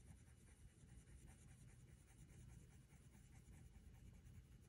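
Faint scratching of a Blick Studio colored pencil on paper as a steady run of small, quick strokes lays white over red.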